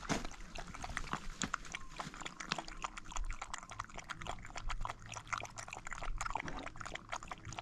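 Puppy lapping water from a plastic bucket: a quick, uneven run of wet clicks and splashes.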